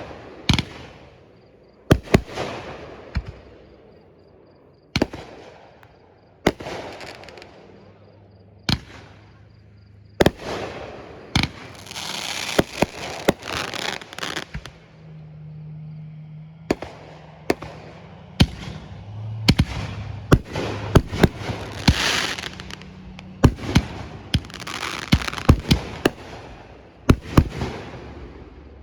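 Fireworks bursting in sharp booms. The bursts come a few seconds apart at first and then pile up thickly after about ten seconds, with crackling and sizzling between them.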